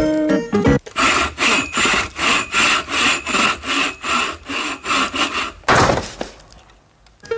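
Hand saw cutting wood in quick, even strokes, about three a second, then a loud crash about six seconds in as the wood gives way and a ladder and board fall.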